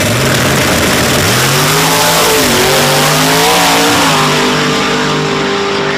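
Two drag-racing pickup trucks launching hard side by side and accelerating down the strip. Their engines climb in pitch and drop back at each upshift.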